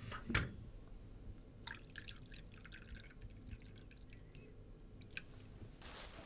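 A glass coffee carafe clinks once against a porcelain cup, then coffee is poured in with a couple of seconds of small splashing, trickling blips. Paper starts rustling at the very end.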